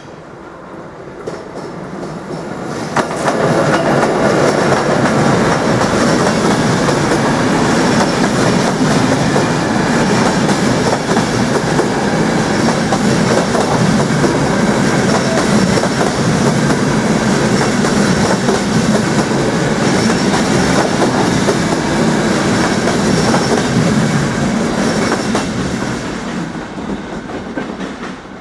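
A train passing close by on the line, wheels running over the rails. It builds up over the first three seconds, stays loud for about twenty seconds, then fades away near the end.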